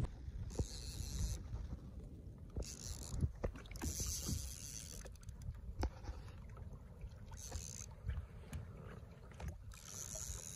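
Water splashing around a fishing kayak in several short spells, with scattered light knocks on the hull and gear, over a low rumble.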